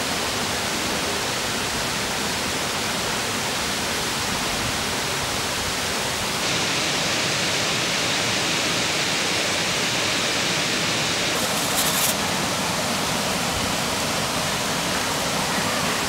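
Waterfall rushing, a steady hiss of falling water that gets a little louder and brighter about six seconds in. A short rustle near twelve seconds.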